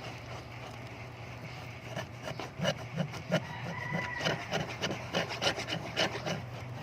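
Slime being mixed and scraped on a paper plate: irregular clicks and scrapes starting about two seconds in, over a steady low hum.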